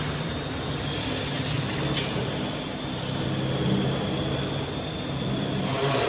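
CNC router with automatic tool changer running, a steady machine noise with a low hum and a faint high whine.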